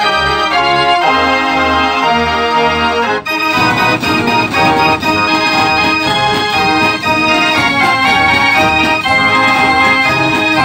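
J. Verbeeck fair organ playing a tune through its pipes: held chords over a pulsing bass, then about three seconds in the fuller arrangement comes in with a steady drum beat.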